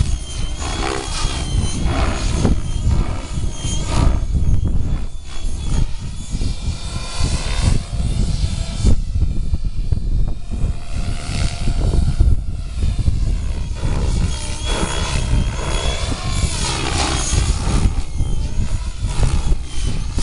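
Gaui X7 electric RC helicopter in flight: the rotor blades and motor whir continuously, their pitch sweeping up and down as it manoeuvres.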